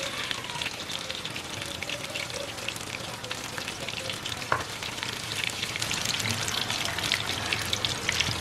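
Battered chicken pieces deep-frying in hot oil in a cast-iron skillet: a steady crackling sizzle. About halfway through there is a sharp tap as more battered pieces go into the oil, and the crackling then grows louder and denser.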